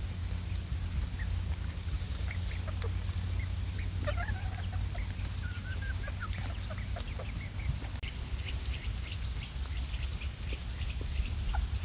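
Domestic fowl clucking and calling, with short high chirps scattered throughout, over a steady low rumble.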